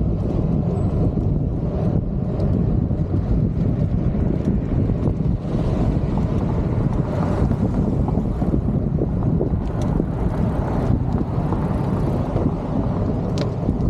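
Wind buffeting a moving microphone: a steady low rumble, with a few faint clicks.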